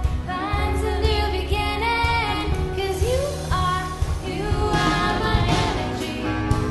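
Worship band music with a voice singing long held notes over a strong, steady bass.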